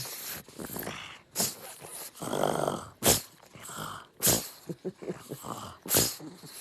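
A dog making a series of short, rough vocal sounds, with a few sharp sudden ones about a second or so apart and a longer rough sound in the middle.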